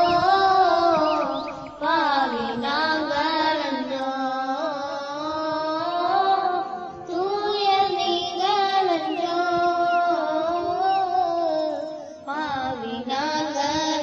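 A young girl singing a Tamil song in long, wavering held phrases, with short breaks for breath about every five seconds.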